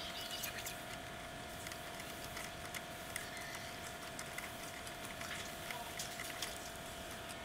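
Irregular light metallic clicks and taps of steel bolts being turned and handled in a welded nut-and-bolt spider jig, over a steady background hum.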